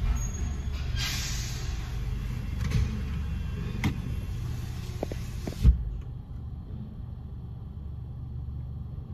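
Low steady rumble of a Belanger conveyor car wash tunnel heard from inside the car. A hiss rides over it and cuts off suddenly about six seconds in, with a single thump at the same moment.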